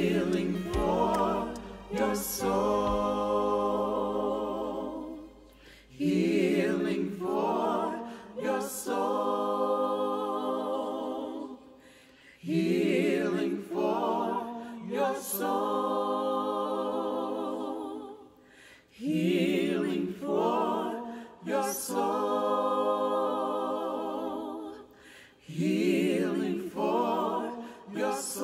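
Small mixed ensemble of men's and women's voices singing a cappella in harmony, in phrases of about six seconds, each starting strong and tapering off.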